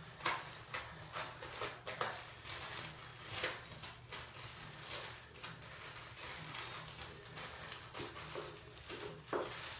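Sticky green slime being stretched and pulled by hand out of a plastic container, making irregular sticky clicks and pops.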